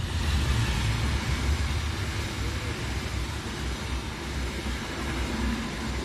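An express passenger train hauled by a CC 206 diesel-electric locomotive passes at speed on the next track, heard through a train window. The locomotive's engine rumble and the rush of the train come in suddenly, then the coaches roll by in a steady loud rush with a deep rumble underneath.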